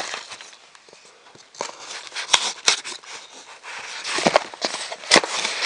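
Cardboard shipping box being handled and opened: scraping and rustling of the cardboard with several sharp taps and knocks, quiet for the first second or so and busier after.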